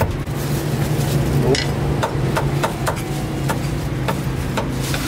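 Sharp knocks repeating unevenly, about two a second, over a steady low hum.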